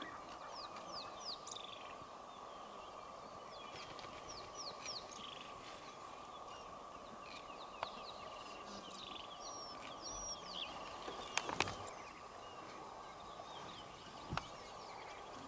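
Bush ambience: many birds chirping in short falling calls, over a steady faint high hum, with a few sharp clicks in the last few seconds.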